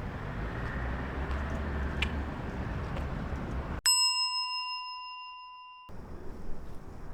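A steady rushing noise with a deep low rumble, then, about four seconds in, a single clear bell-like ding that rings for about two seconds and cuts off suddenly.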